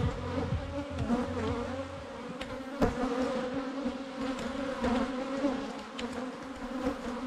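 Honeybees buzzing in numbers around an opened hive, a steady hum, with bees flying close past the microphone. A single knock sounds just under three seconds in.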